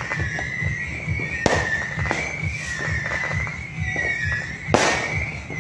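New Year fireworks going off: scattered crackling pops, with two sharp loud bangs, one about a second and a half in and one near the end. A steady, wavering high tone runs underneath.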